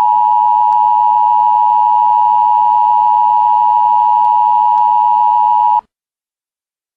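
Emergency broadcast attention tone: a loud, steady electronic tone that cuts off abruptly about six seconds in, followed by dead silence.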